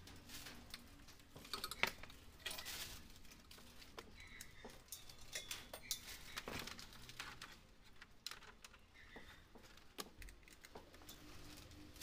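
Scattered light knocks and clicks of a large flat-panel TV being handled and set down on its stand on a glass-topped workbench. The sharpest knock comes about two seconds in.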